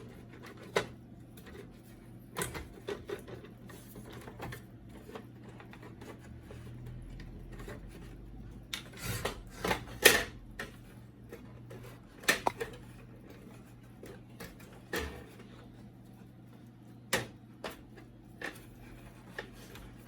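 Plastic clicks, snaps and light knocks from an HP LaserJet P1102 printer's front panel being pulled and prised off its catches, coming irregularly with a cluster of sharper snaps about halfway through, over a low steady hum.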